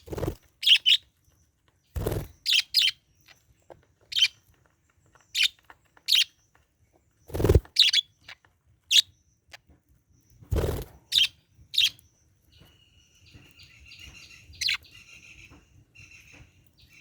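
Budgerigar giving short, sharp chirps one at a time, spaced about a second apart, with a few low thumps among them. Near the end it slips into a quieter, run-on chattering warble.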